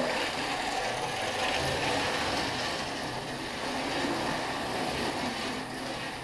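Magracing model racing car running around the track: a steady mechanical whirr with a gear-like rattle that swells and eases a little as the car laps.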